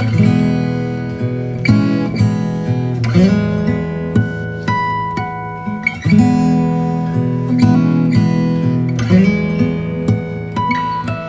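Instrumental background music, an acoustic guitar strumming chords and picking single notes.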